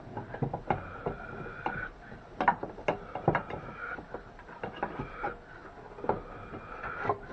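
Irregular clicks and knocks of a hard-plastic board clamp being loosened and lifted off glued-up wooden boards, plastic and wood knocking together, over a faint steady high whine.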